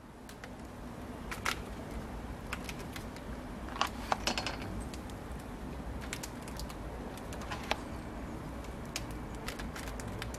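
Chicken skewers grilling over charcoal in a mangal: scattered, irregular small crackles and pops from the embers and dripping fat, over a low steady background rumble.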